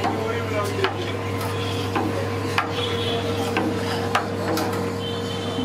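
Metal spoon scraping and clinking against a stainless-steel batter box while scooping white batter over a spiral-cut potato, with a handful of sharp clicks. A steady machine hum runs underneath.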